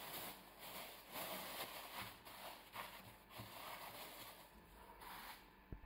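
Faint, irregular crinkling of a thin plastic bag as a ball of dough is wrapped in it, with a soft low thump near the end.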